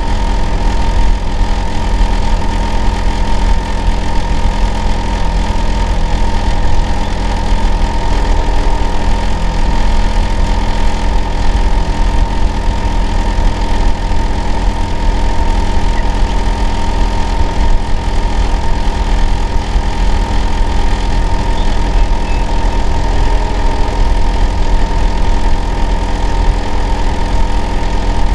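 Hitachi air-conditioner outdoor unit running: a loud, steady low hum with a constant whine near the top, unchanging throughout.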